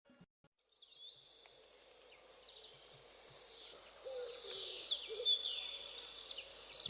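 Small birds chirping and whistling in high, short calls, starting faint and growing steadily louder.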